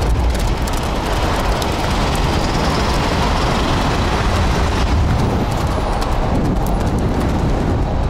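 Steady noise of a moving vehicle: a continuous low rumble under a dense hiss, unbroken throughout.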